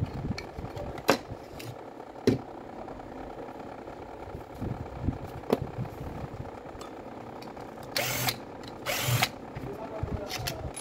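Metal tools clicking and knocking against the parts of a Makita BO5030 orbital sander as it is taken apart, a few sharp clicks over a steady background hum. Near the end come two short hissing bursts about a second apart.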